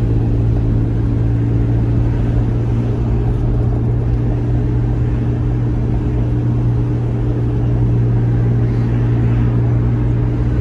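Steady drone of a car on the move, engine and road noise heard from inside the cabin, with a constant low hum that does not change.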